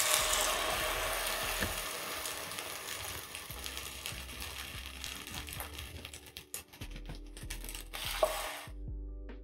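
Egg-soaked slice of bread frying in hot oil in a nonstick pan: a steady sizzle, loudest as the slice goes in and slowly dying down, with a few small crackles and a brief louder pop just before the sizzle cuts off abruptly near the end.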